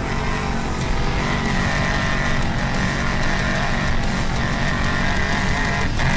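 Off-road trophy truck's big-block V8 engine running as the truck drives across loose desert dirt. A steady high whine sits above the engine from about a second in.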